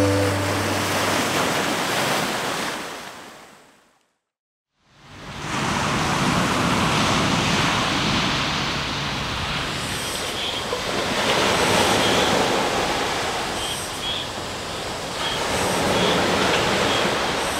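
Sea waves washing on a beach: a steady rushing surf that fades out to silence about four seconds in, then fades back in.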